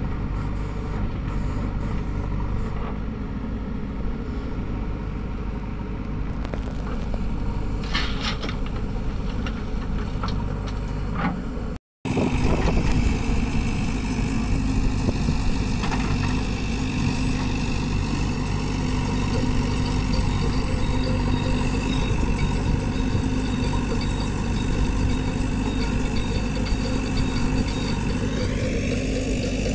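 Diesel engines of a JCB backhoe loader digging and loading soil and a Massey Ferguson tractor idling, a steady hum with a brief dropout about twelve seconds in. After the dropout the tractor's engine idles close by, and an engine revs up near the end as the backhoe swings its loaded bucket over the trolley.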